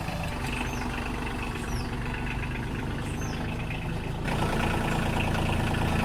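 Kioti compact tractor's diesel engine idling steadily, getting louder and fuller about four seconds in.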